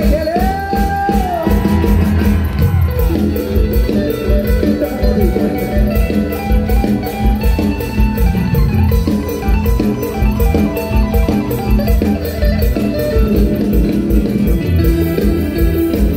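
Live, amplified mor lam band music with a steady driving beat; a long, sliding held note from the singer near the start.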